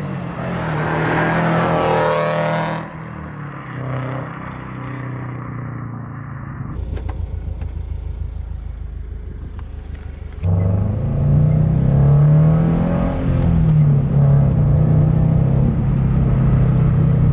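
2022 Toyota GR86's 2.4-litre flat-four running through a JDL aftermarket exhaust while driving. It revs up in the first couple of seconds, drops to a quieter cruise, then from about ten seconds in it pulls under load with a loud, deep exhaust note.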